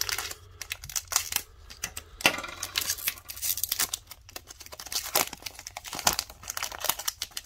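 Hands tearing open the foil-lined wrapper of a hockey trading-card pack and crinkling it: a quick, irregular run of crackles and rips.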